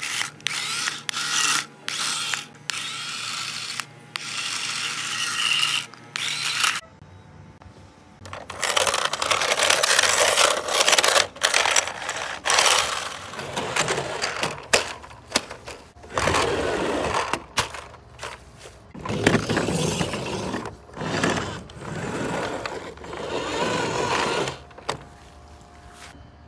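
Small electric motors and gearboxes of toy remote-control cars whirring in many short bursts, starting and stopping as the cars are driven.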